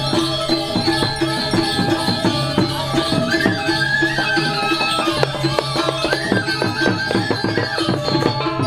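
Balinese gamelan playing Barong dance music (tabuh barong): ringing bronze metallophones and a pulsing low gong tone over fast, dense kendang drum strokes.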